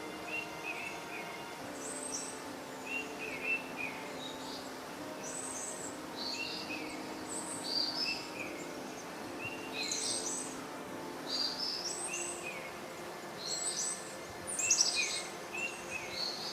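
Small birds chirping, short high chirps repeating every second or so, several calls overlapping at times. The loudest cluster comes near the end.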